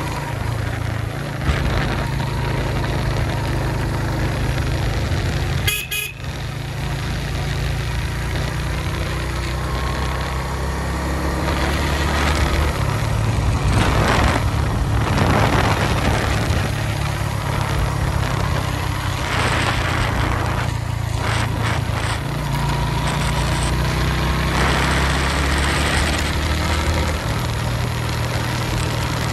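Suzuki GS150 motorcycle's single-cylinder four-stroke engine running while riding, under a steady rush of wind noise. Vehicle horns toot a few times.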